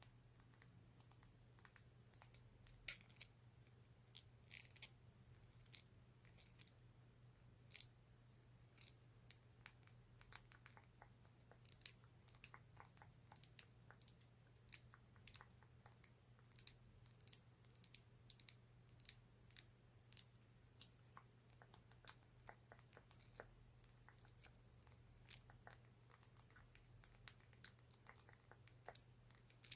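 Fingernails tapping on a lip gloss and clicking its lid: an irregular run of small, sharp clicks and taps, coming thicker from about twelve seconds in.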